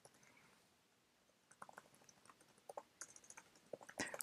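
Faint computer keyboard typing: scattered single keystroke clicks that begin about a second and a half in and come more often near the end.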